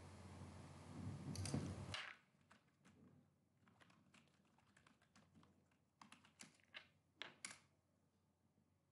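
Faint typing on a computer keyboard: scattered keystroke clicks, with a few louder ones between about six and seven and a half seconds in. A hiss with a brief louder noise stops suddenly about two seconds in.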